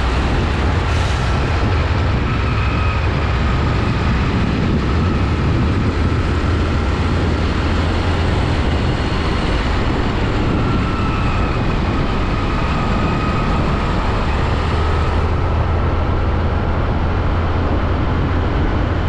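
Steady road noise from heavy trucks: a constant low rumble of diesel engines and tyres on the road, with a faint steady whine above it.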